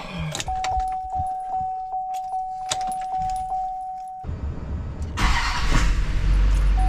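Keys jangling in the ignition with a steady warning chime in the cab of a Duramax diesel pickup. About four seconds in the starter cranks, and a second later the 6.6-litre V8 turbodiesel catches and runs loud and steady, the chime sounding again near the end.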